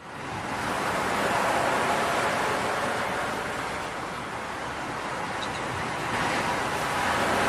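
A steady rushing noise like waves washing on a shore fades in after a brief silence, eases slightly midway and swells again near the end.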